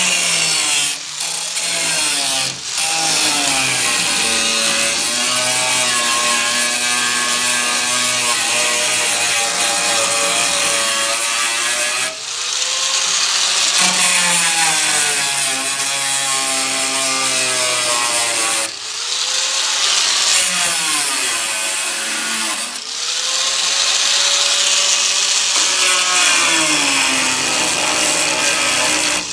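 Power tool cutting through the car's sheet-metal quarter panel, its motor whine dropping in pitch under load and recovering, with several brief stops.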